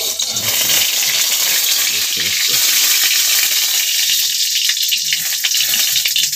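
Food frying in hot oil in a kadhai, a loud steady sizzle that starts abruptly, with the metal spatula knocking and scraping in the pan now and then.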